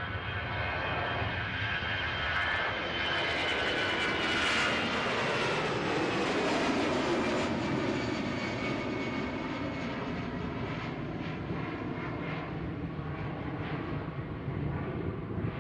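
Jet airliner's engines passing close by, their whine dropping in pitch as it goes past about four to seven seconds in, then a steady rumble as it moves away.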